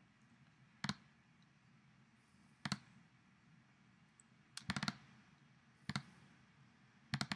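Computer mouse clicking: single clicks a second or two apart, with quick double clicks near the middle and again near the end.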